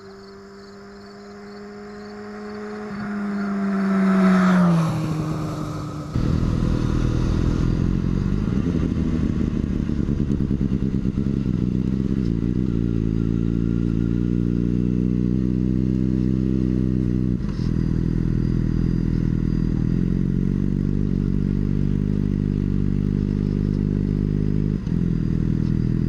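Sport bike motorcycle engine running at low speed, starting abruptly about six seconds in and holding steady with slight rises and falls in pitch. Before it, a steady tone swells up and peaks, then fades.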